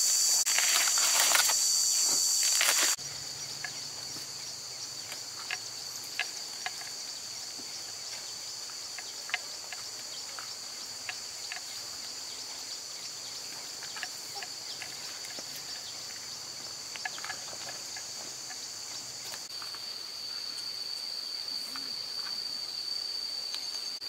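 Dry corn husks crackling and tearing as ears are husked by hand, loud for about three seconds, then cutting off abruptly. Under it and after it, a steady high-pitched insect chorus continues with scattered faint ticks.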